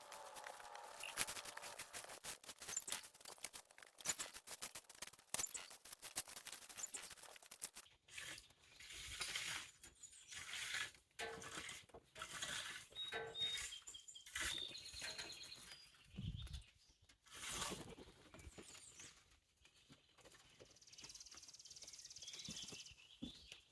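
Garden rake scraping and tearing through wet grass in repeated, uneven strokes.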